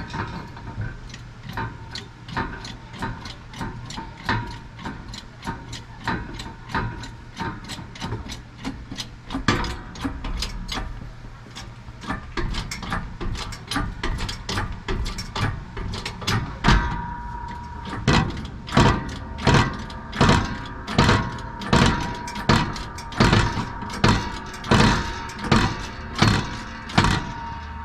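Hammer blows on metal: a run of lighter, quicker taps, then from about halfway heavier, evenly spaced strikes about once a second that leave a ringing note.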